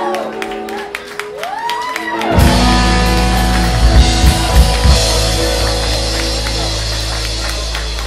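Live rock band: a sung vocal line over guitar, then about two seconds in the whole band comes in loud on a held chord with bass, cymbal crash and a few heavy drum hits. The chord rings on and slowly fades.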